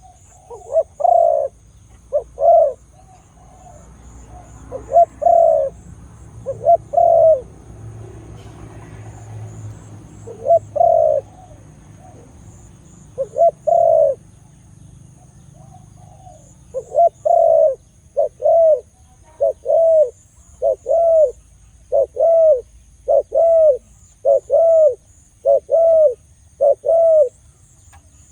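Spotted dove cooing: short, arched coos, at first in irregular groups with pauses between them, then a steady series of about one and a half coos a second over the last ten seconds.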